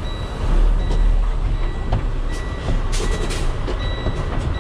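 Freightliner semi truck's diesel engine rumbling at low speed as the truck backs up, heard inside the cab, with a reverse warning beeping at short, repeated intervals and a few sharp clicks.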